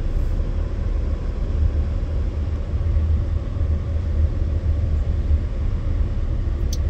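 Steady low rumble of a vehicle heard from inside its cabin as it creeps forward in a traffic jam.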